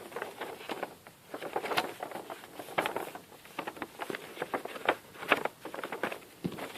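A sheet of ordinary paper rustling and crackling as it is folded and creased by hand, in many short, irregular crinkles.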